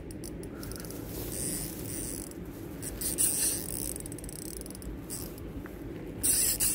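Fishing reel clicking in short spells, louder about three seconds in and again near the end, as a big hooked carp pulls hard against the line.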